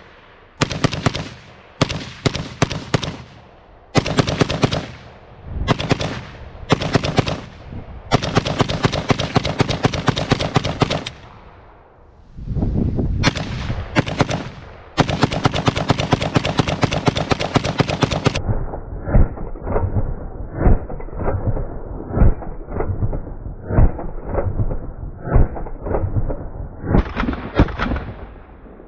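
Gunshots fired in rapid strings, some long unbroken runs at about ten shots a second, with short pauses between bursts. About two-thirds of the way in the shots turn muffled and continue in shorter, more spaced groups.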